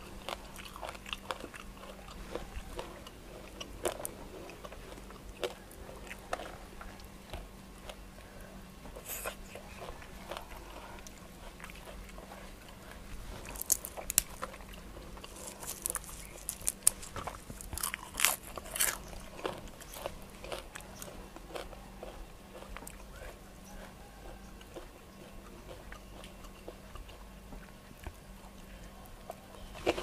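A person biting and chewing crunchy food, with a run of louder, crackly crunches from about 14 to 19 seconds in.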